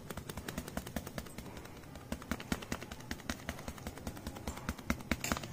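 Dried oregano being sprinkled over a pizza: a quick, irregular run of light ticks and crackles, many a second.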